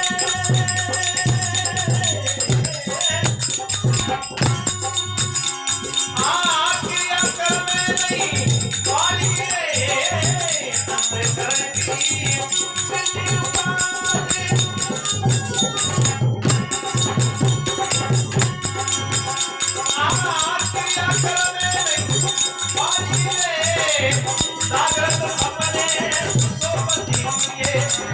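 Folk devotional music in an instrumental passage: a steady rattling percussion beat keeps time while a melody line rises and falls over it.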